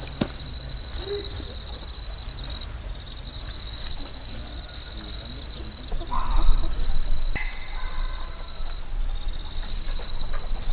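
Backyard farm ambience: a steady high-pitched trill carries on throughout, and a chicken calls briefly about six seconds in.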